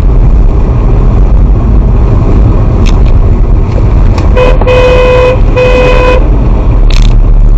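Car horn blaring twice in quick succession, about a second and then just over half a second, over the steady low engine and road rumble of a moving car.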